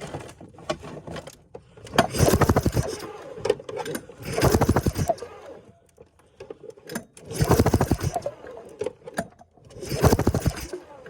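Snowmobile's two-stroke engine pulled over four times on its recoil starter, each pull a second-long burst of rapid cranking pulses, without starting, while the spark plug is checked for spark.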